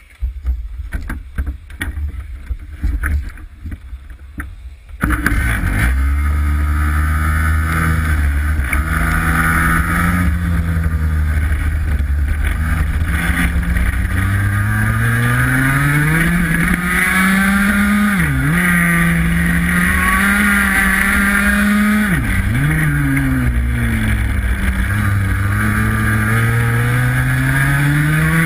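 Racing kart's two-stroke engine heard from an onboard camera. It starts abruptly about five seconds in, and its revs rise and fall through the corners, dropping sharply twice as the throttle is lifted. Wind rumbles on the microphone throughout. Before the engine, knocks and rustling as the driver climbs into the kart.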